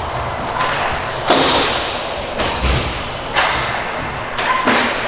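Hockey game impacts in a large echoing rink: about six sharp knocks and slaps of sticks, puck and bodies against the boards, the loudest about a second in.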